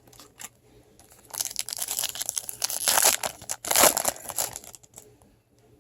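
Crinkling and tearing of a trading-card pack's foil wrapper as it is ripped open by hand, a dense crackle that starts about a second in and dies away past the four-second mark.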